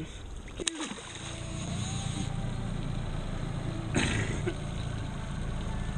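A small white sturgeon is released back into the river off the side of an aluminium boat, with a brief sharp splash less than a second in. After it comes a steady low rumble, and a short knock about four seconds in.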